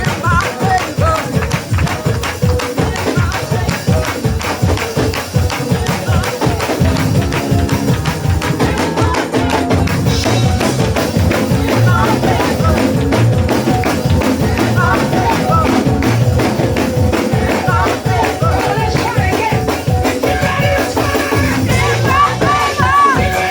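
Loud up-tempo praise music with a fast tambourine and drums driving a steady beat, with singing.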